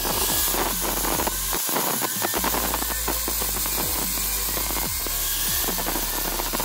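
Angle grinder with an abrasive disc running against a steel four-way lug wrench, a steady whine with a grinding rasp. Background music with a beat plays underneath.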